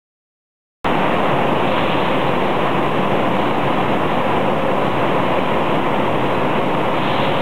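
Steady machinery noise of an IQF tunnel freezer and its conveyor line running, starting abruptly after about a second of silence.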